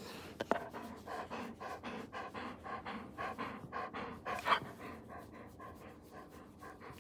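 Quick rhythmic panting, about four breaths a second, easing off a little near the end, with a couple of sharp clicks about half a second in.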